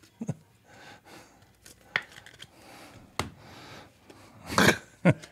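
Trading cards and their packaging handled on a table: a few scattered sharp clicks and taps, with a louder short scrape near the end.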